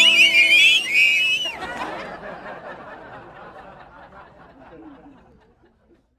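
Brass-band music ends on a held chord under high, wavering cries and laughter. A noisy jumble of voices then fades out over about four seconds.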